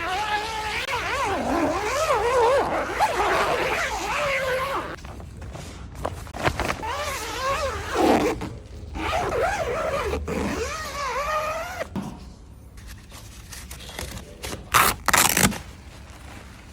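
Plastic protective wrap being stretched and peeled off a car's body, giving wavering squeaky tones that rise and fall, then two short loud rips of the film near the end.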